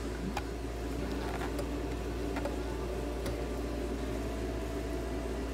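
Steady low background hum with a few faint, light clicks spread out about a second apart as a radio dial pointer is worked loose by hand on its shaft.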